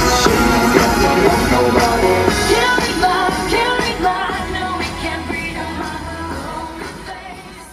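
Pop song with a sung vocal, fading out over the last few seconds.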